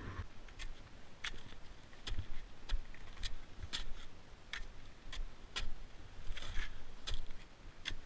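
Ski touring gear on firm snow: sharp clicks and ticks about every half second as poles plant and skis and bindings step, with a short crunching scrape of snow about six and a half seconds in.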